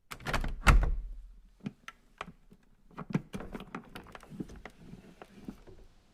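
A series of irregular knocks and clicks on a hard surface, two loud ones in the first second, then lighter taps at uneven intervals.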